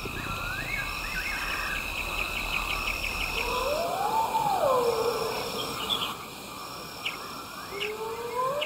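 Night bush ambience: crickets and other insects chirp and trill steadily, short high chirps repeat about every second and a half, and a long whistled call rises and then falls twice.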